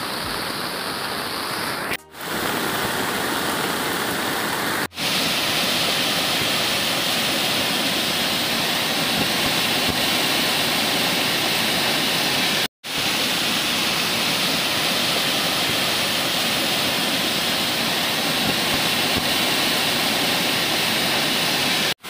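Steady rushing of a fast, rain-swollen river and its waterfalls, broken by three very brief dropouts about two, five and thirteen seconds in.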